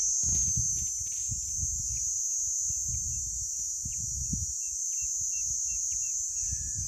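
A steady, high-pitched insect chorus in dry bush, with a bird repeating a short chirp about three times a second from about two seconds in. An uneven low rumble of wind on the microphone runs underneath.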